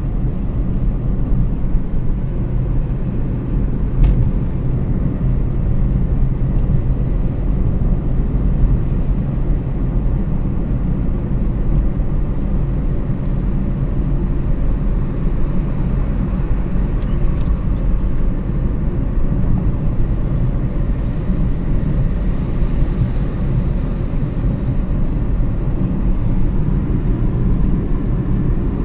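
Steady low rumble of a motor vehicle on the road, with a single sharp click about four seconds in.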